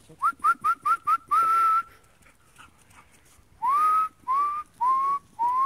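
A person whistling for the dogs: five quick rising chirps and a short held note, then after a pause of nearly two seconds, four more rising chirps.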